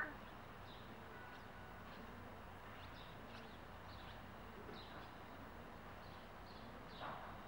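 Faint, short high chirps of small birds scattered throughout, with one brief falling call from the cat near the end, like its chattering calls at the birds.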